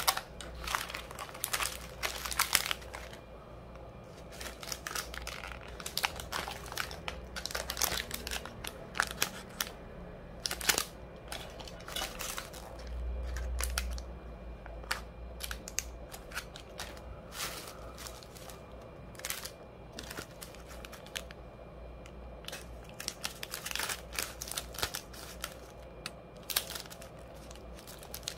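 Thin plastic packaging crinkling as small zip bags of nail supplies are handled and sorted, in irregular clusters of crackles with short pauses between.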